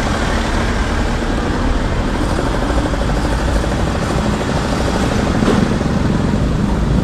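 Motorcycle underway at a steady pace: its engine running under steady wind and road noise.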